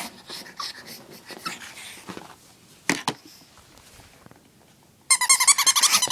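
Pug whining for his chew toy: after soft snuffling and a couple of clicks, a fast run of high-pitched whimpers starts suddenly about five seconds in, one of them sliding down in pitch.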